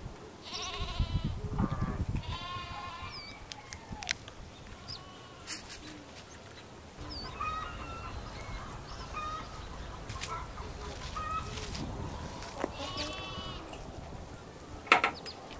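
Three quavering livestock bleats: about a second in, about two and a half seconds in, and again near the end. Under them come scattered sharp clicks of a knife against a metal tray as a raw chicken is cut up; the loudest click comes just before the end.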